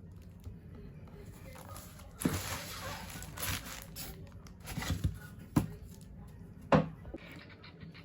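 Packaging of a diecast model car being handled: a stretch of rustling and crinkling, then a few sharp clicks, the loudest near the end.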